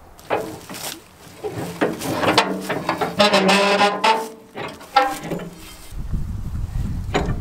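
Steel knocks and scraping as a pry bar works a Bush Hog 305 rotary cutter's hitch onto a tractor's three-point linkage, with a drawn-out pitched tone in the middle. A low rumble comes in near the end.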